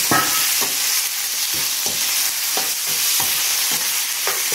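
Chicken pieces sizzling in hot oil in a non-stick frying pan while a steel spoon stirs them, knocking and scraping against the pan about twice a second over a steady hiss.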